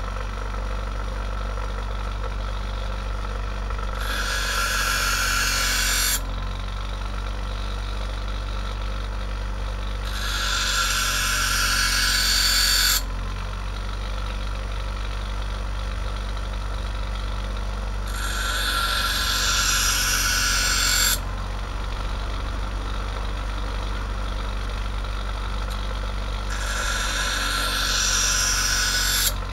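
Einhell bench grinder running with a steady hum while a steel knife blade is pressed against the grinding wheel four times, each pass a loud hissing grind of two to three seconds with only the motor running between passes. The grinding is shaping a new point onto a knife blade whose tip has broken off.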